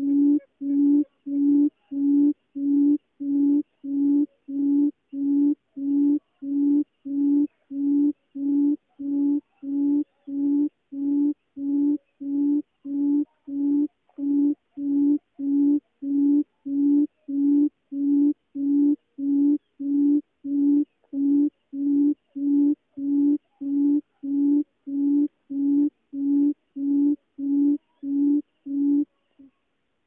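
Barred buttonquail's low booming call: one hollow, steady note repeated evenly, about three every two seconds, which stops near the end.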